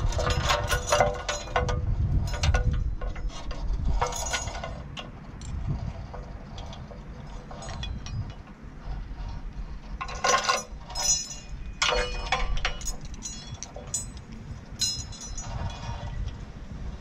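Bursts of metallic clinking and rattling, coming in several clusters, over a low rumble.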